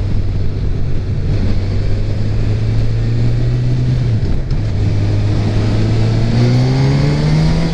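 Honda CB1000R's inline-four engine heard from the rider's seat under way. Its note holds steady, dips briefly about four seconds in, then climbs steadily in pitch as the bike accelerates, over wind rush on the microphone.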